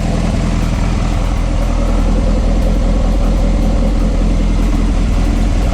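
Lotus Esprit Turbo SC's 2.2-litre turbocharged four-cylinder engine spinning steadily on fresh oil, for an oil pressure check after an oil change.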